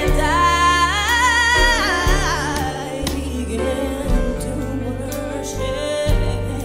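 Female solo voice singing a gospel worship song with vibrato over instrumental accompaniment with a steady bass. The sung line climbs and holds high notes for the first couple of seconds, then falls back to a softer, lower phrase.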